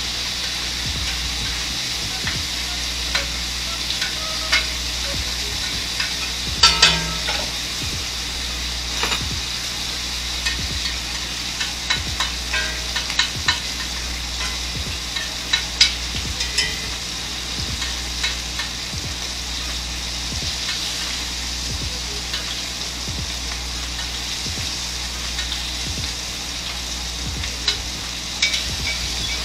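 Butter and oil sizzling steadily in a hot pan with garlic and rosemary, broken by scattered clicks and taps of a utensil against the pan, loudest about seven seconds in and again near sixteen seconds.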